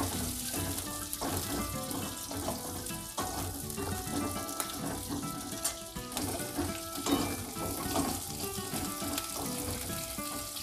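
Chopped onion, capsicum and spring onion sizzling as they fry in a little oil in a wok, stirred with a spatula, under background music.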